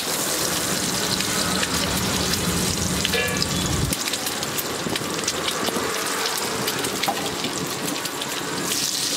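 Oil sizzling on a flat iron griddle as sliced boiled eggs and onion fry, with many scattered crackling ticks. A low hum underneath stops suddenly about four seconds in.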